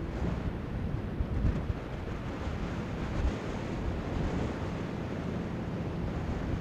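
Wind buffeting the microphone in gusts over the steady wash of the sea, with a faint low drone from the engines of the approaching car ferry. The gusts are loudest about a second and a half in and again past three seconds.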